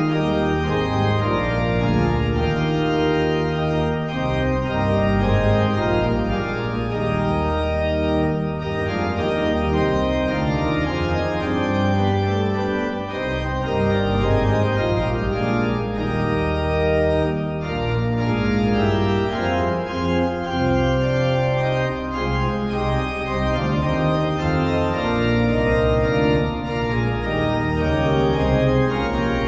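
Organ music that starts abruptly, playing slow, sustained chords that change every second or two.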